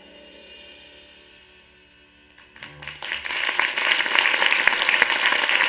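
A musical-theatre ballad's final held sung note and closing chord fade out. About three seconds in, a theatre audience breaks into applause that quickly grows loud and dense.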